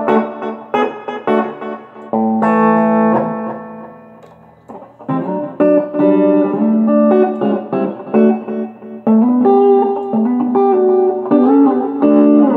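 Electric guitar played through a 1980s Peavey Heritage VTX tube amp driving a Peavey Black Widow 1201-8 speaker, with a little distortion from the amp's distortion channel. It plays picked single notes and chords, lets one chord ring out and fade a few seconds in, then starts playing again.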